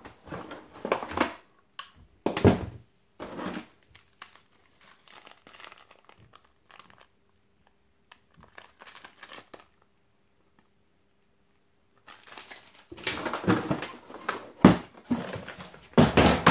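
Thin plastic packaging crinkling as it is handled, in short bursts, then quieter for several seconds. Near the end comes louder rustling and handling with a few sharp knocks.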